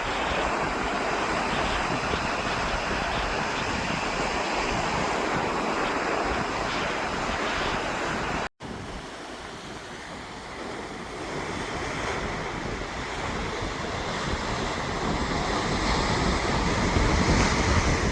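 Wind buffeting the microphone, a steady rushing noise. It drops out for an instant about eight and a half seconds in, then comes back weaker and builds again with a deeper rumble toward the end.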